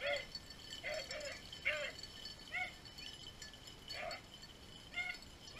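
Beagles baying while running a rabbit: about seven short, arching bawls at uneven intervals, the pack giving tongue on the rabbit's track.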